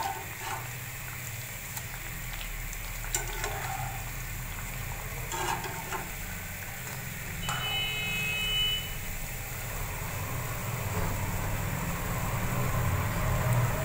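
Bread slices shallow-frying in hot oil in a nonstick pan, sizzling steadily, with a few light clicks of metal tongs as the slices are turned and lifted out.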